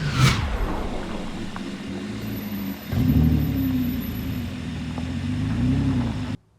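Off-road vehicle engine running, picking up in level about three seconds in and holding a steady note; the sound cuts off abruptly near the end.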